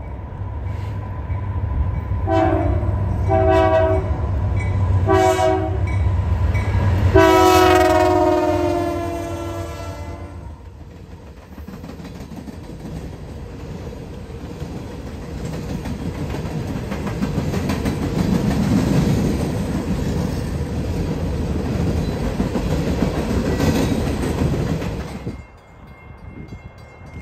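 CN freight train locomotive horn, a multi-note chord, sounding three short blasts and then one long blast of about three seconds. After the horn the train passes close by with a steady rumble and wheel clatter from loaded hopper cars, which cuts off suddenly near the end.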